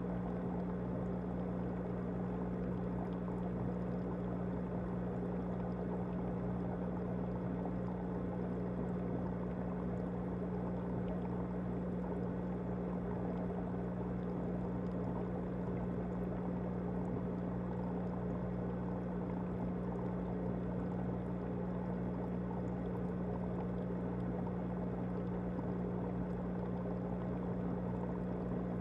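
An aquarium pump humming steadily, with an even hiss of moving water over the hum.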